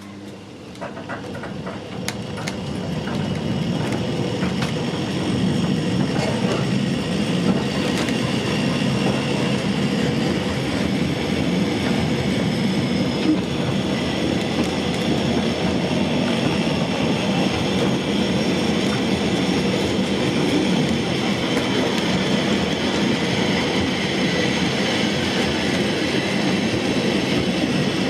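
Train running on its rails, picking up speed and getting louder over the first few seconds, then rolling steadily with a continuous rumble and occasional clicks of the wheels.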